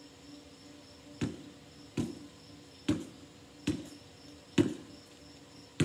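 Basketball being dribbled on hard ground: sharp bounces a little under a second apart, starting about a second in.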